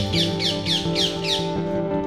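Background instrumental music with steady chords. Over it, a quick run of short falling chirps at about four a second stops about one and a half seconds in.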